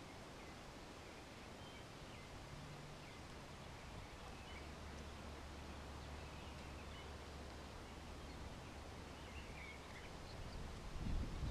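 Faint outdoor background with scattered, high bird chirps, and a brief louder low rustle near the end.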